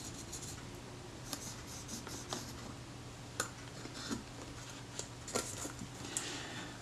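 Faint scratching and small scattered clicks of hands and tools working on a stripped-down metal Kodak Retina IIIS camera body, over a low steady hum.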